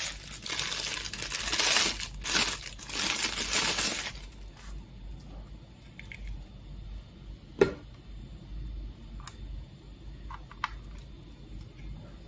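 Plastic bag crinkling and rustling for about four seconds as a charger is taken out of it, followed by a few light clicks and one sharp knock about halfway through as the charger and its cable are handled.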